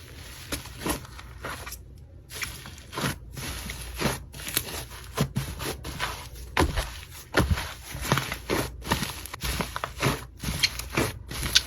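Slime being squeezed and poked by hand, giving a dense run of irregular crackling clicks and pops.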